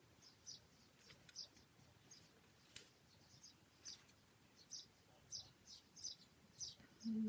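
Near silence with faint bird chirps: short high notes repeating about twice a second, with a few faint ticks in between.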